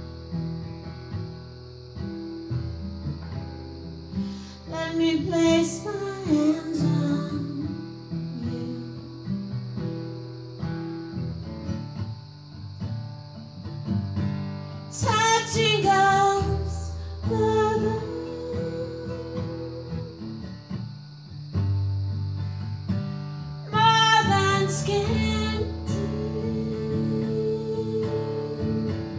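A woman singing to her own acoustic guitar. The guitar plays throughout, and the voice comes in phrases about five, fifteen and twenty-four seconds in, with vibrato on the held notes.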